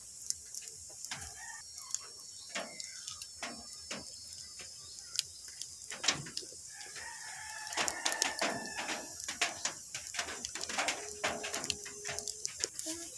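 Firewood fire crackling and popping under a cooking pot, with irregular sharp snaps throughout. A rooster crows in the background, once about seven seconds in and again about eleven seconds in.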